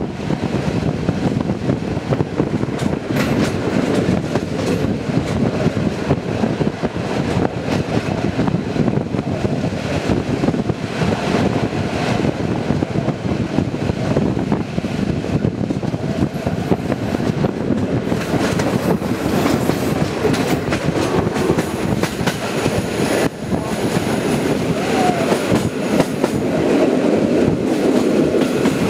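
Passenger train running at speed, heard through an open carriage window: a steady rumble of the wheels on the track with occasional clicks over the rail joints.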